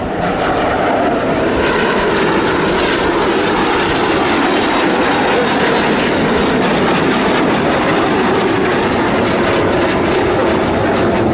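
L-39 Albatros jet trainers' turbofan engines: loud, steady jet noise as the aircraft fly a display manoeuvre overhead. A faint whine falls in pitch a couple of seconds in.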